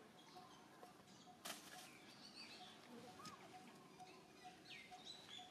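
Near silence: quiet outdoor ambience with a few faint, short high chirps and a single sharp click about one and a half seconds in.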